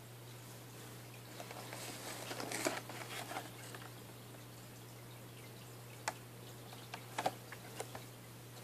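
Retail phone-case box of card and clear plastic being picked up and turned over in the hand: a run of crinkles and scrapes about two seconds in, then a few sharp clicks and taps near the end, over a steady low hum.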